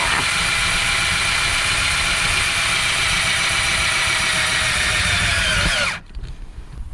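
A power tool motor running steadily under load. Its pitch drops as it winds down and then stops, about six seconds in.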